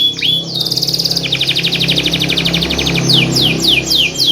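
Domestic canary singing a long, fast song: falling chirps at the start, then a rapid high trill of repeated notes, and a run of sweeping downward notes near the end. A steady low hum lies underneath.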